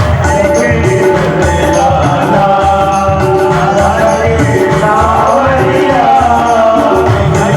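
Devotional music: a sung melody over a steady beat of low drum strokes.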